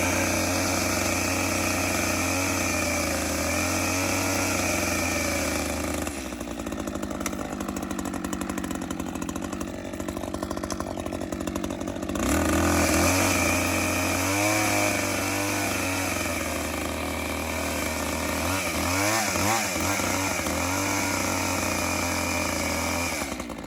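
New Echo CS-620 two-stroke chainsaw running at high revs with a high whine, on its first run and being broken in. About six seconds in it drops to a lower, rougher idle, then revs back up about halfway through, wavering in pitch for a while, and falls off again near the end.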